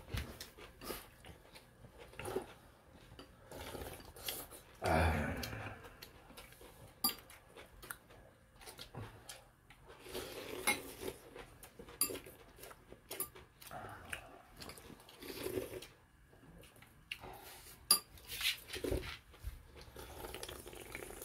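Metal spoons and chopsticks clinking and tapping against bowls and dishes during a meal: scattered light clicks at irregular intervals, with one louder, longer noise about five seconds in.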